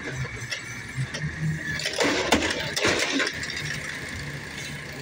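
Garbage truck's automated side-loading arm lowering an emptied wheeled trash cart, with about a second of plastic-and-metal clattering roughly two seconds in, over the steady hum of the truck's engine and hydraulics.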